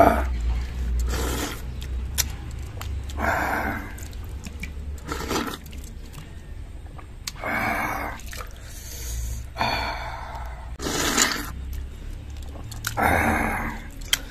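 Wet slurping and chewing of watery rice porridge eaten by hand, in short bursts every two seconds or so.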